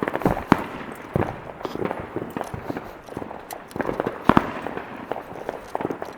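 Fireworks and firecrackers going off: an irregular scatter of pops and bangs, with the loudest bangs about half a second in and again just past four seconds.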